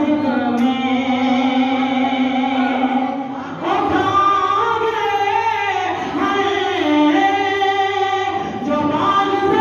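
Voices singing a melodic devotional verse: one long held note for about the first three seconds, then shorter rising and falling sung phrases.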